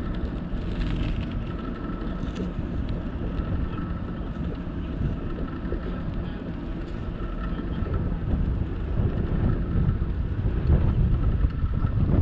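Wind buffeting the microphone while riding a bicycle along a paved path, over a steady low rumble; the buffeting grows gustier in the last few seconds.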